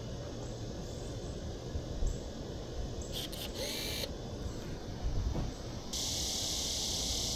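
Canon Esprit 35mm point-and-shoot film camera firing: a shutter click about three seconds in, followed by a short whir of the motorized film advance. From about six seconds a steady high-pitched hiss sets in.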